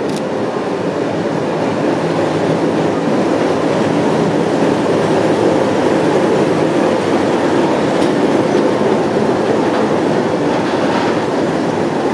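NSW 45 class diesel-electric locomotive 4520, with its ALCO V12 diesel engine running, passes along the platform hauling heritage passenger carriages, the engine noise and the wheels rolling on the rails making a steady loud roar that builds slightly over the first few seconds as the train goes by.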